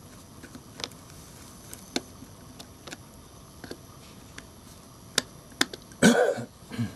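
Small screwdriver clicking and scraping in the screws of an LG B1300 mobile phone's plastic back housing as they are undone: scattered light clicks about once a second, two sharper ones a little after five seconds. About six seconds in comes a brief, louder noise.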